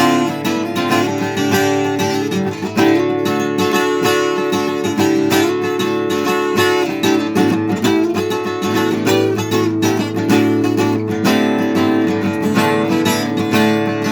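Acoustic guitar strummed in a steady rhythm, an instrumental break between sung verses of a folk song.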